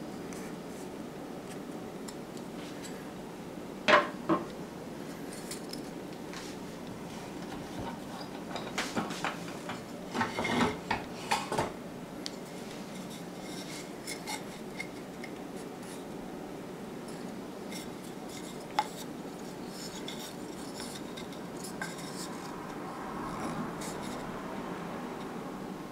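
Scattered clicks, taps and light clatter of wooden trim pieces being handled against a plastic miter box and its saw, busiest in a cluster about a third of the way in, over a steady background hiss.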